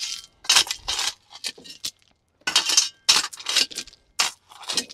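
A steel shovel scraping into and scooping river-rock stone, the stones clinking and rattling against the blade and each other in an irregular string of short scrapes.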